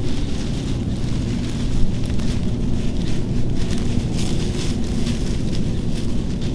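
Wind buffeting the microphone in a steady low rumble, with an irregular dry rustling and crackling over it.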